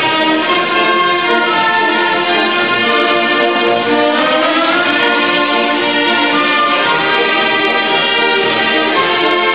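Symphony orchestra playing live, bowed strings to the fore with some brass, a phrase climbing in pitch about halfway through.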